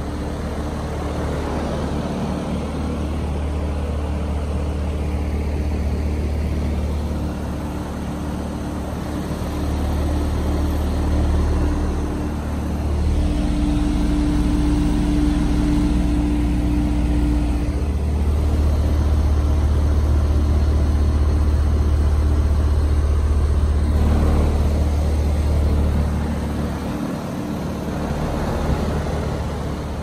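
New 2020 Payne heat pump outdoor unit running in heat mode: steady compressor hum with the condenser fan turning. The steady tone grows louder for a few seconds about halfway through.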